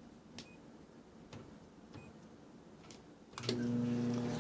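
Microwave oven keypad beeping as buttons are pressed, with light clicks, then the microwave starting up about three seconds in with a steady electrical hum.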